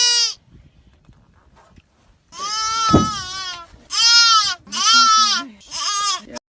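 A bleating farm animal calling four times in quick succession after a short pause, the first call the longest.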